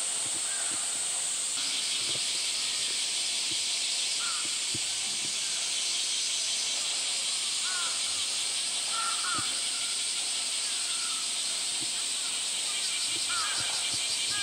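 Steady high-pitched droning of a summer cicada chorus, with a second, pulsing buzz joining about a second and a half in. Faint short chirps are scattered through it.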